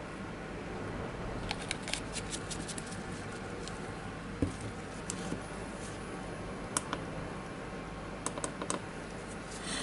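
Scattered light clicks and taps of small hand tools being handled on the workbench, with a dull knock about halfway through, over a steady low hum.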